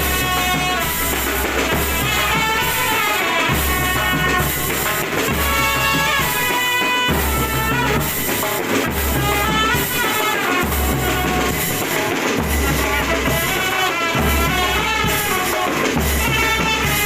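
Music: a wavering, gliding melody line over a regular drumbeat of about one beat a second, with a steady high hiss of cymbals or bells.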